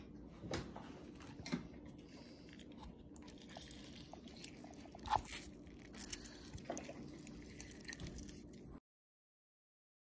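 Faint squelching and a few small clicks of a lime being squeezed by hand over diced raw fish in a plastic tub. The sound cuts off suddenly near the end.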